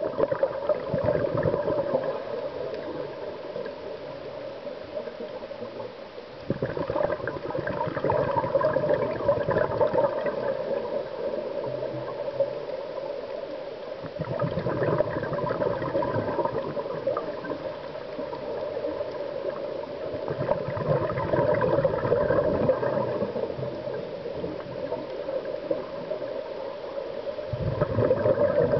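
Underwater sound of a scuba diver breathing through a regulator: exhaled bubbles gurgle in surges about every seven seconds, with quieter stretches between.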